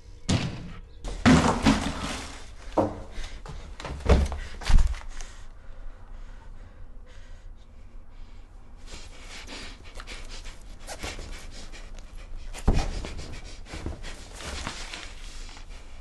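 A door slams shut, followed by several more heavy thumps over the next few seconds. From about nine seconds in, a young woman's fast, heavy panting, a panic attack setting in, with one more thump near the end.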